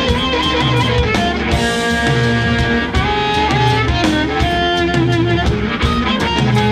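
Live blues band playing an instrumental passage: a harmonica blown cupped against a vocal microphone carries long held, wailing notes over electric guitar and drums. A low riff repeats about once a second.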